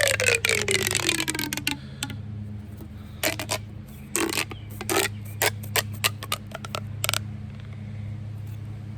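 Plastic pop tube being stretched and squashed: a ratcheting zip that falls in pitch over the first two seconds, then scattered clicks and pops as the ribs snap in and out.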